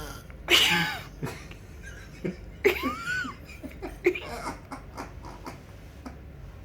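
A person laughing in short, breathy bursts: a loud burst about half a second in, a high squeal that rises and falls near the three-second mark, then a run of quick short pulses.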